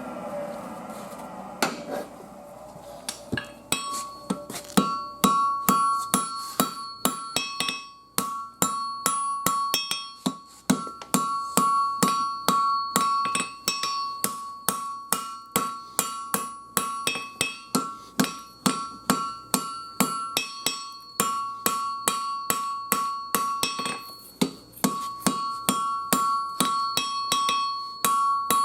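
Hand hammer striking hot 5160 steel on an anvil, a steady run of blows about two a second with the anvil ringing between them, as the tip of a knife is drawn out to a point. The blows begin a few seconds in and pause briefly near the end.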